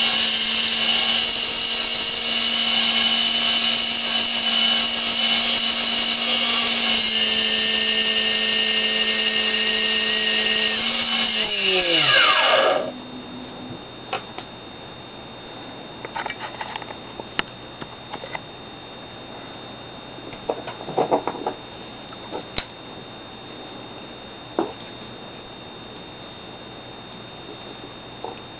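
Turnigy TR28-26B brushless outrunner motor, running unloaded on its BL-Ctrl speed controller, with a steady high whine that dips slightly in pitch about seven seconds in. About twelve seconds in the throttle goes to zero and the whine glides down as the motor spins down and stops. After that only faint scattered clicks and taps are heard over a low hum.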